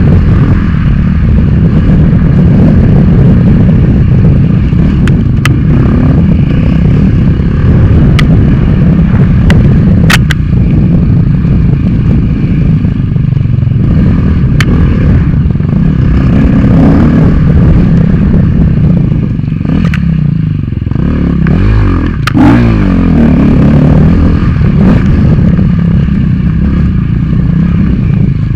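Dirt bike engine running hard at race pace, the revs rising and falling with throttle and gear changes, with a few sharp clicks and knocks scattered through. About twenty-one seconds in the revs drop off and then climb again.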